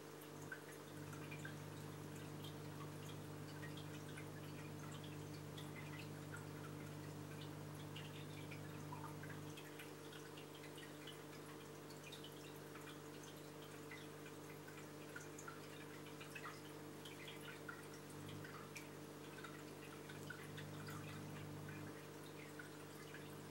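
Aquarium water faintly dripping and trickling, with a steady low hum from the tank's running pump and filter equipment.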